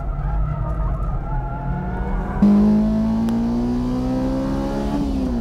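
Engine noise of a car running hard on a circuit, then, about two and a half seconds in, the louder onboard sound of the Spoon Honda S2000's F20C inline-four at high revs, its pitch climbing steadily as it pulls through a gear, with an upshift near the end.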